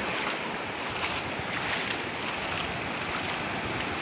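Sea waves washing onto the shore in a steady wash of surf, with some wind on the microphone.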